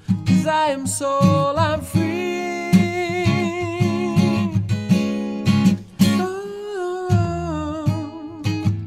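Song with acoustic guitar playing steady plucked chords and a gliding melody line above it, without words.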